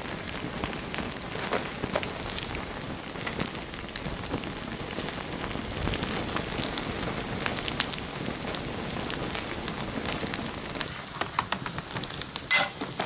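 Melting Lego plastic burning in tall flames, a steady hiss and crackle with many small pops. About twelve seconds in comes one louder, sharp crack: the tile under the fire fracturing in the heat.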